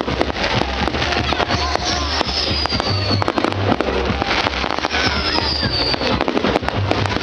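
Fireworks going off in a rapid run of crackles and bangs, with music playing underneath.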